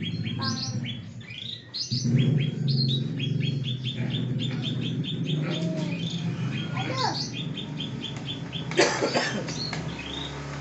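Small birds chirping in quick repeated notes, about five a second, mixed with whistled glides and a loud harsh call near the end. A steady low hum runs underneath.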